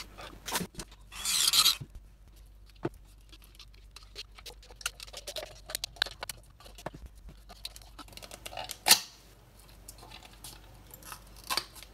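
Plastic diffuser dome of an IKEA LEDARE LED bulb being pried and cut away with side cutters: a short scraping rasp about a second in, then a run of small plastic cracks and snips, with one loud snap about nine seconds in.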